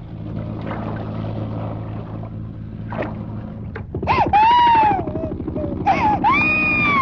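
A baby crying in loud wails, each about a second long, rising then falling in pitch: one about four seconds in and another near six seconds. A steady low hum runs underneath.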